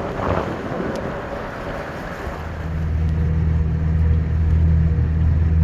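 Motorboat engine running over wind and water noise on the river. A deep, steady engine hum comes in about two seconds in and stays loud.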